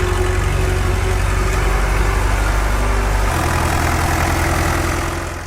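An engine running steadily with a low, rapid pulsing note. The note changes about three seconds in, and the sound fades out at the very end.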